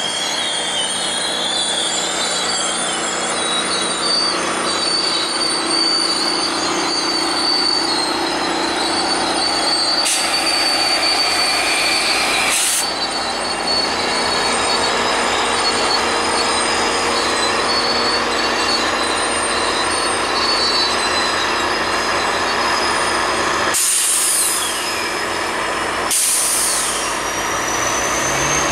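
Westbound GO Transit commuter train of bilevel coaches, pushed by an MP40 diesel locomotive, rolling into the station as it slows to a stop, with a steady rumble and thin high squeals from the wheels on the rails. The locomotive passes about halfway through.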